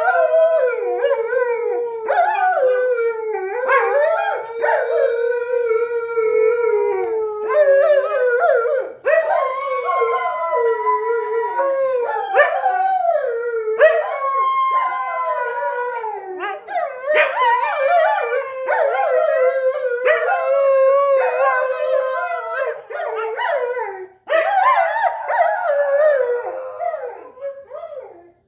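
A German Shepherd and a Siberian Husky howling together, loud long howls that waver and bend in pitch and overlap one another, with only brief breaks for breath.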